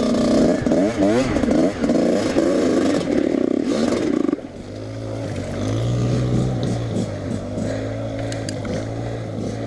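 Dirt bike engine revving hard, with the pitch swooping up and down. About four and a half seconds in it drops to a lower, steadier run near idle, blipped by short throttle rises.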